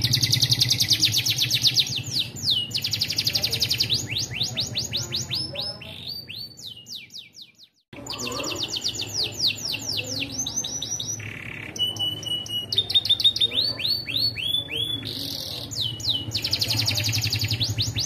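Domestic canary singing a long, unbroken song of fast trills, each a rapid string of downward-sweeping notes, switching from one trill to the next. The song fades out about seven seconds in and starts again a second later.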